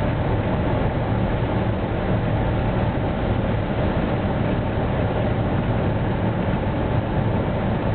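Cessna 172's piston engine and propeller running steadily, heard from inside the cockpit as a constant drone mixed with airflow noise, on final approach to land.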